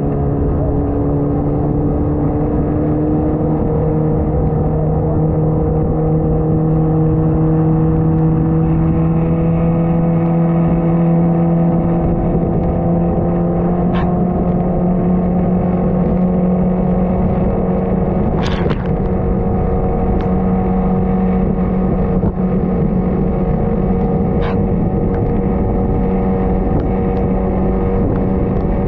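A vehicle engine running steadily, its pitch rising slowly over the first dozen seconds and then holding, with a few sharp clicks in the second half.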